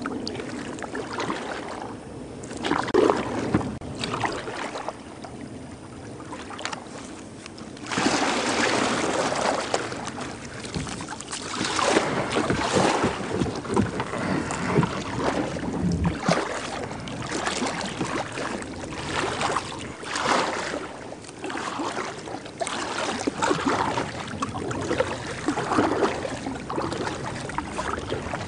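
Kayak paddle strokes splashing in river water, a swish about every one to two seconds, louder from about eight seconds in.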